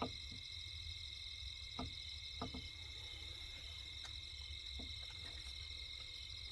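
A steady high-pitched chorus of insects trilling without a break, with a low rumble under it and a few faint knocks, about two seconds in and again near five seconds.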